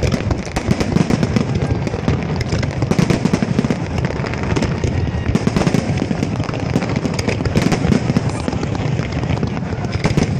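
Fireworks going off in a dense, continuous barrage of rapid bangs and crackles with no pause.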